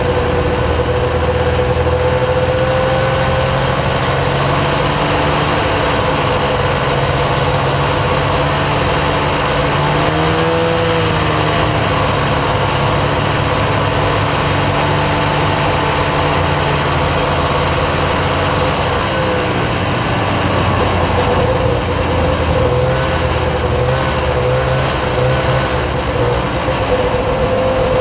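Snowmobile engine running steadily while riding a packed trail; its pitch dips and climbs back about ten seconds in, and wavers up and down near the end.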